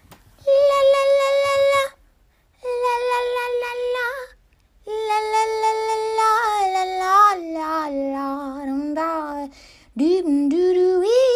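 A high voice singing long drawn-out notes without clear words, in four phrases with short gaps between them. The third phrase steps down in pitch and wavers, and the last rises near the end.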